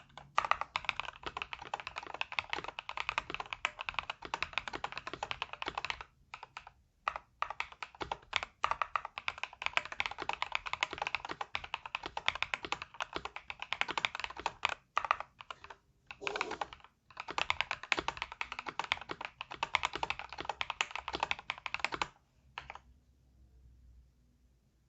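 Typing on a KBDfans KBD67 Lite mechanical keyboard with Krytox-lubed Durock POM linear switches and PBT OEM-profile keycaps: a fast, dense run of keystrokes with a few short pauses about a quarter of the way in. The typing stops a few seconds before the end.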